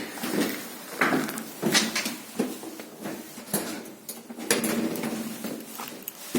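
Scattered clicks, knocks and light rattles of hardware being handled, about a dozen separate strikes over several seconds.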